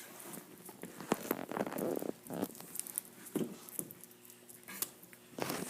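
People eating juicy oranges: irregular wet clicks, smacks and rustles of chewing and handling peel.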